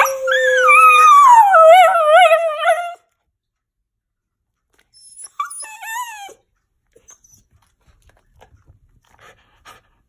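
A dog howling: one long howl of about three seconds whose pitch slides down and then wavers, and a shorter howl about five seconds in. Faint small clicks follow.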